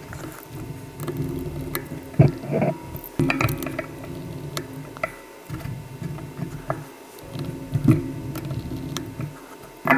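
Hands handling a Canon 60D's plastic body and a small precision screwdriver working at its base screws: low rubbing with scattered light clicks and taps. Near the end the tip is on a screw whose head is clogged with a grain of grit, so the driver cannot seat in it.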